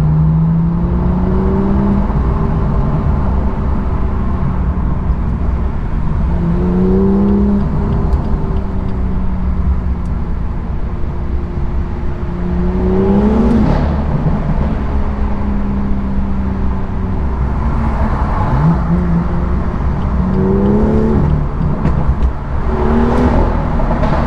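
BMW M2's N55 turbocharged straight-six with M Performance exhaust accelerating hard through a tunnel. The revs rise and drop back at gear changes about half a dozen times, with a few sharp exhaust cracks. The exhaust note echoes off the tunnel walls.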